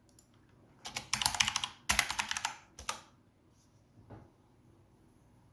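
Typing on a computer keyboard: a quick run of keystrokes lasting about two seconds, followed by a couple of single key presses.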